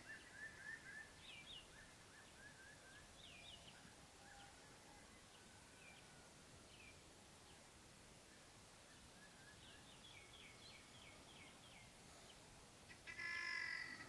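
Faint bird chirps over a quiet outdoor hiss: short notes that slide downward, in a quick run near the start and another about ten seconds in. About a second before the end, a much louder, rapidly pulsing animal call breaks in.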